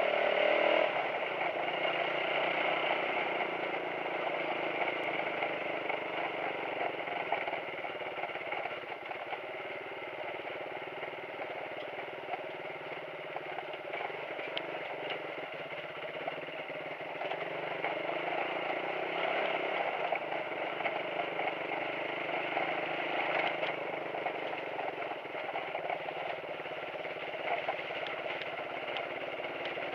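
Suzuki motorcycle engine running steadily at low speed as the bike rides over a rough stone track, with clattering and rattling from the rocks. The engine is a little quieter through the middle stretch.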